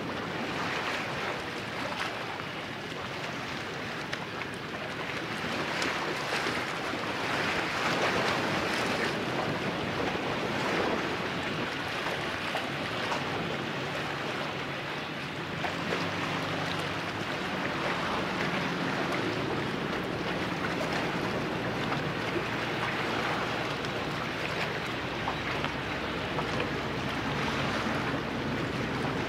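Steady wind and water noise. About halfway through, the steady drone of a pusher tug's engine comes in underneath and grows a little stronger near the end.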